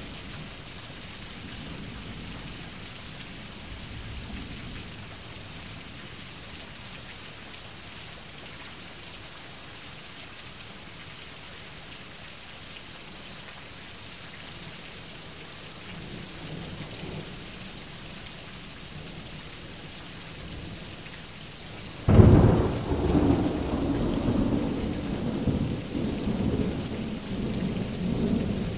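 Steady rain hissing, with faint low rumbles of distant thunder. About three-quarters of the way through, a loud thunderclap breaks suddenly and keeps rumbling.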